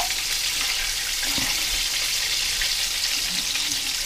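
Chicken pieces deep-frying in hot oil in a cast-iron skillet: a steady hiss of sizzling oil.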